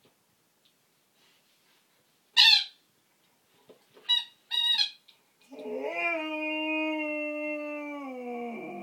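Flat-coated retriever vocalising: a sharp yelp, two short yips, then one long howl held for about three seconds, its pitch dropping slightly at the end.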